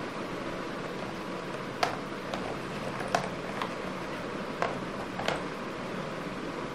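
A paintbrush taps six times against paper on an easel board. The taps are short and sharp, spread between about two and five seconds in, over a steady background hiss.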